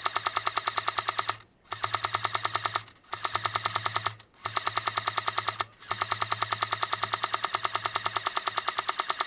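Airsoft M60 support gun firing long bursts on full auto, a fast, even rattle broken by four brief pauses.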